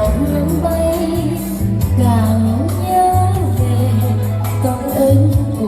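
Vietnamese song with a woman singing a gliding melody over a steady, heavy bass line.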